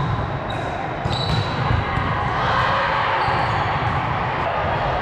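Indoor volleyball court: balls bouncing and being struck on a hard gym floor, over steady background chatter.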